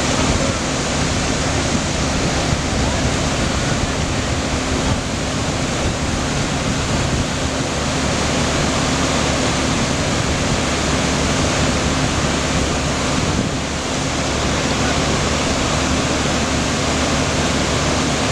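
Flash floodwater rushing in a steady, loud roar of water.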